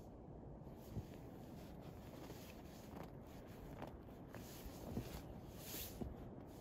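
Faint, soft crunches of steps in deep snow, a handful of them scattered over a steady low rumble.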